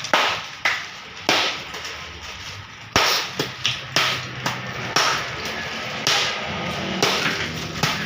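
Block ice being struck and broken: about a dozen irregular sharp knocks and cracks, some coming in quick runs.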